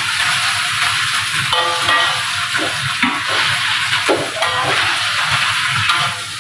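Leafy greens sizzling in a hot steel wok as they are stir-fried, turned and tossed with a metal spatula and ladle: a loud, steady sizzling hiss with irregular knocks and scrapes of the utensil in the pan.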